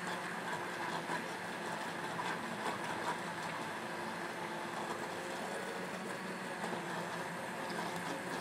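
Hand-held immersion blender running steadily, puréeing a sauce in a stainless steel saucepan.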